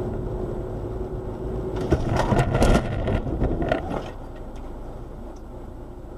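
A car crash heard from inside the car: steady driving noise, then a sharp bang about two seconds in followed by about a second of crunching and scraping, a few more knocks, and a quieter steady hum afterwards.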